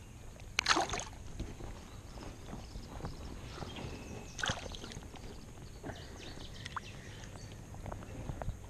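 Water sloshing and lapping around a person wading waist-deep, with two short splashes, about a second in and again near the middle.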